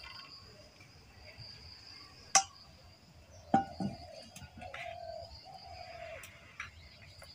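A dove cooing in a low, slightly falling call a little past halfway, and two sharp clinks of a steel bowl and spoon as thin rice batter is poured through a funnel into a plastic bottle. A thin steady high tone sits in the background.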